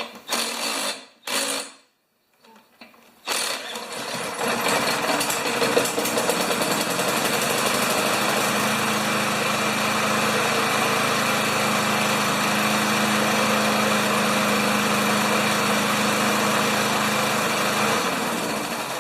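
Tecumseh 6 hp single-cylinder mower engine catching about three seconds in, after a couple of short sounds and a pause, then running steadily at its governed top speed of about 3,200 rpm before dying away near the end.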